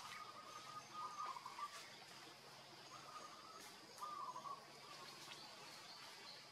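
Faint forest ambience: a short call repeats four times, a second or two apart, over a steady high hum, with a few faint clicks.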